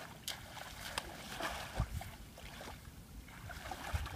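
Light splashing and sloshing of shallow muddy water as someone wades through it, with a few sharp clicks and low bumps.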